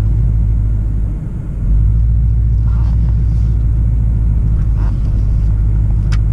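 Ford Mustang GT's 5.0-litre V8 running as the car drives off, a deep steady rumble that briefly drops away about a second in and then comes back at full level.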